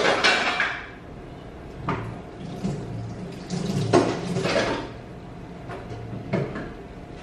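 Kitchen clatter: a few knocks and rattles of dishes and utensils, the loudest in the first second and again around four seconds in, over a steady low hum.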